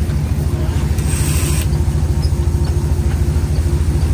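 An engine running steadily: a loud, low drone that pulses quickly, with a faint steady hum above it. A short hiss comes about a second in.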